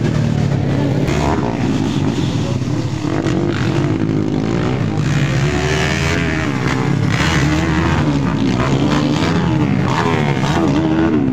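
Motocross dirt bike engines revving on the track, their pitch rising and falling as the riders work the throttle through the jumps.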